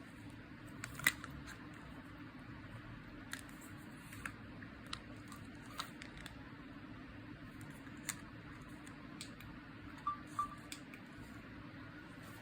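Scattered light clicks and taps of small parts and tools being handled, about eight in all and irregularly spaced, over a faint steady hum.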